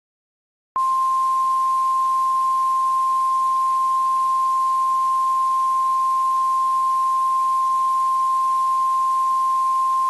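NOAA Weather Radio warning alarm tone, the single steady 1050 Hz tone that signals an urgent warning is about to follow. It starts abruptly less than a second in, out of dead silence, and holds at one pitch over light radio hiss.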